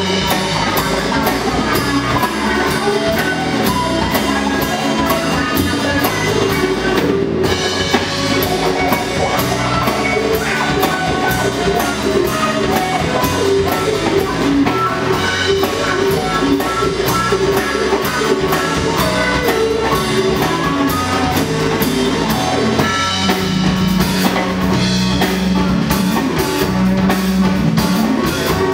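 Live band jamming on an instrumental original tune: drum kit, electric bass and guitars playing together with a steady beat.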